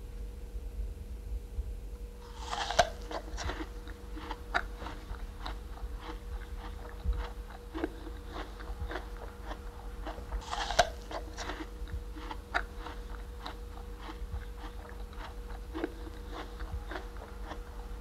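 Quiet room tone with a steady low hum, under a run of small dry clicks at roughly two a second. Two brief rustling sounds come about eight seconds apart, the first a couple of seconds in.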